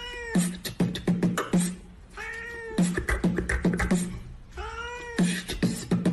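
A cat's meow looped into a rhythmic meme track: the same rising-and-falling meow comes three times, about every two and a half seconds, between beat-like clicks and low thumps.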